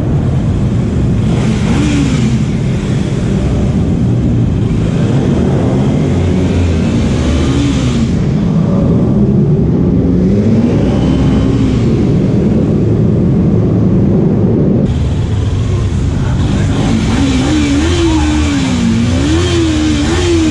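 Kawasaki Ninja 300 motorcycle engine accelerating and shifting, its note rising and falling over and over, under steady wind rush on the helmet-mounted microphone.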